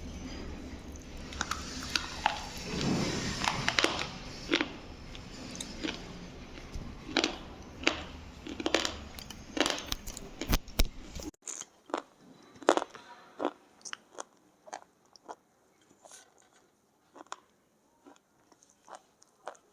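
Black slate pencil being bitten and chewed: a series of sharp, dry crunches, roughly one every half second to a second. A steady background hum drops away suddenly about halfway through, leaving the crunches clearer.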